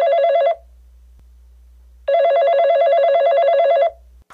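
Telephone ringing on an outgoing call: a warbling electronic ring tone that flutters rapidly between two pitches. One ring ends about half a second in and another lasts about two seconds, with a faint low hum between the rings.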